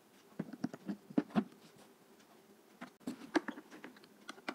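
Small clicks and taps of hard plastic parts: a GoPro camera being fitted and handled on a plastic helmet mount. They come in two clusters, the second about three seconds in.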